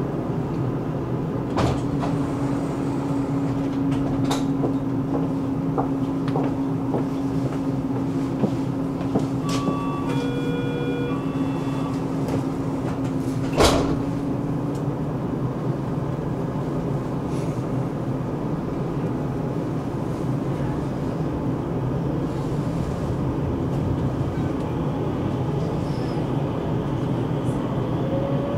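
Rotterdam metro train standing at a station, heard from inside the car: a steady rumble and hum with short electronic door-warning beeps about ten seconds in and a loud clunk of the sliding doors shutting around fourteen seconds. Near the end a rising whine begins as the train starts to move off.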